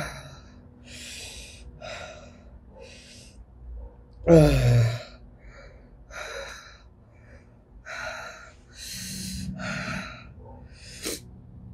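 A woman breathing hard through the mouth against the burn of Carolina Reaper peppers, with short breaths in and out about once a second. About four seconds in comes a loud voiced sigh that falls in pitch, and there is a short click near the end.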